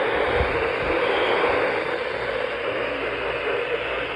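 Steady radio static hiss from a weather radio tuned to a NOAA Weather Radio broadcast, the weak signal buried in noise with no voice coming through.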